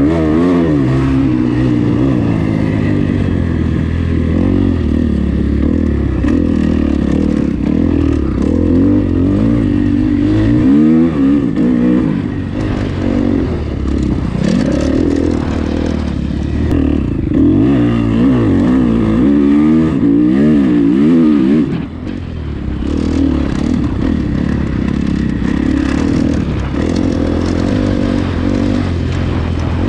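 Motocross bike engine revving hard as it is ridden, its pitch constantly rising and falling with the throttle and gear changes, with one brief let-off about 22 seconds in.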